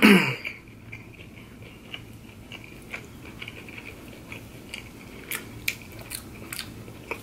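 Close-up chewing of crispy breaded chicken nuggets: soft, crackly mouth sounds with scattered crunches, a few sharper ones a little after five seconds in.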